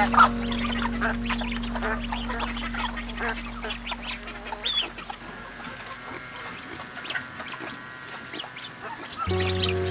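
Chickens clucking in short calls, over background music whose held low note fades away over the first few seconds; the music comes back near the end.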